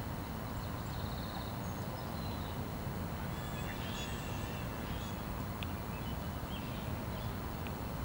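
Steady low outdoor rumble with faint small-bird chirps above it, including a short rapid trill about a second in and scattered chirps around the middle; the geese are not heard calling.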